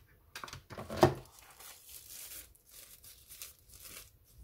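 A sharp knock about a second in, then a plastic packaging bag rustling and crinkling as it is handled and opened to take out a microphone stand.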